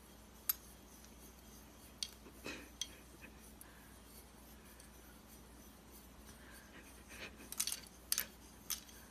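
Faint, scattered light clicks and clinks of several telescoping metal back scratchers knocking together while they scratch a dog: a few sharp ticks in the first three seconds, then a small cluster near the end.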